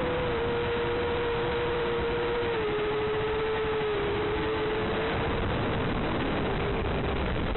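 QAV250 racing quadcopter's motors buzzing at a steady pitch that drops a little twice partway through, under heavy hiss from the analog video link.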